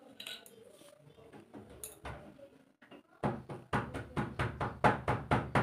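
A quick, even run of sharp clicks, about five a second, starting a little past halfway.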